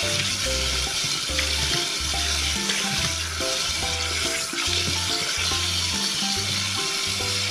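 Tap water running steadily into a steel bowl of small horse mackerel as they are rinsed and swirled by hand, over background music with a regular bass line.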